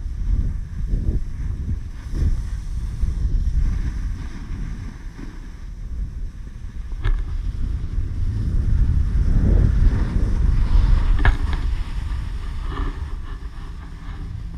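Wind buffeting an action camera's microphone as a snowboard runs down a packed-snow slope, a heavy rumble mixed with the board sliding over the snow. It grows loudest a little past the middle, then eases as the rider slows to a stop, with a couple of sharp ticks along the way.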